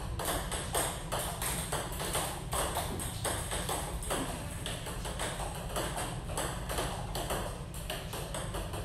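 Table tennis rally: the celluloid-type ball clicking off rubber paddles and the tabletop in a steady back-and-forth, about two or three sharp clicks a second.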